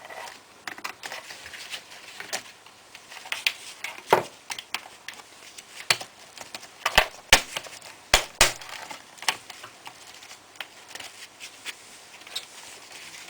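Scattered clicks and taps of a screwdriver and plastic laptop parts while a keyboard screw is undone on a Toshiba A300 laptop, with a cluster of sharper clicks about seven to eight and a half seconds in.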